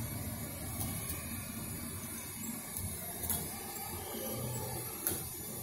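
Small electric motor and gearing of a metal construction-kit model locomotive whirring steadily as it drives the wheels, with a few clicks.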